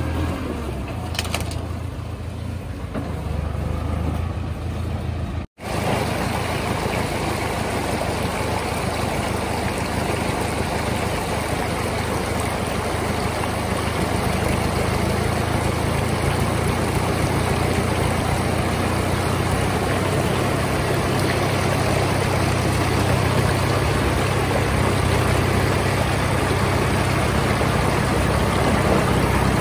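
David Brown 995 tractor's three-cylinder diesel engine running steadily under load. After a brief dropout about five seconds in, the rush of a rocky stream becomes the loudest sound, with the engine still running underneath.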